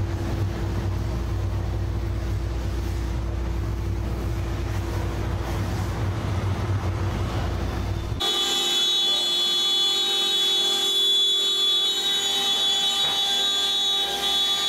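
A low engine rumble with a steady hum runs for about eight seconds. Then it cuts abruptly to the steady high-pitched whine of a CNC router's spindle, made of several fixed tones.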